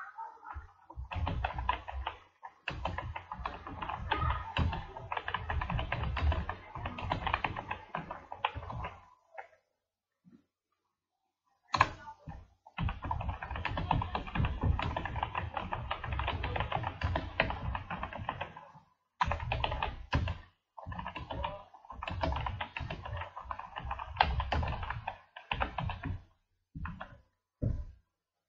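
Fast typing on a computer keyboard: long runs of rapid key clicks broken by short pauses, with one longer pause of about two seconds a third of the way in.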